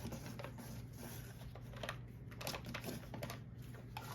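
Cardboard-wrapped firework cakes being handled and lifted out of their cardboard box: an irregular run of light knocks, scrapes and rustles.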